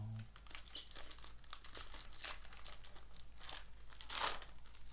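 Crinkling and tearing of a trading-card pack wrapper as a pack of baseball cards is opened by hand, with a louder crinkle about four seconds in.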